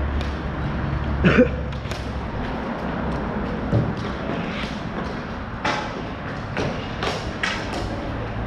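Sharp, scattered knocks of ball hockey play: sticks clacking against the ball and the court floor, about half a dozen hits, the loudest about a second in.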